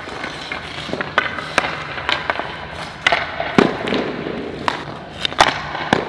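Ice hockey shooting drill: sticks slapping pucks and pucks hitting the goalie's pads and the boards, about ten sharp cracks and thuds at uneven intervals, with the strongest past the middle.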